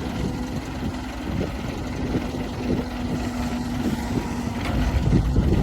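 A construction vehicle's diesel engine running, with a steady hum over a low, uneven rumble.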